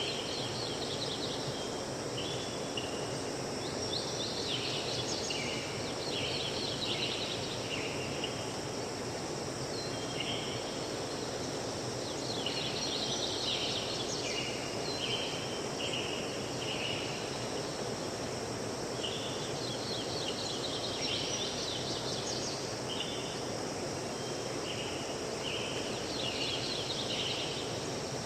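A songbird singing the same short phrase of high chirps, stepping down in pitch, about five times, over a steady rushing hiss.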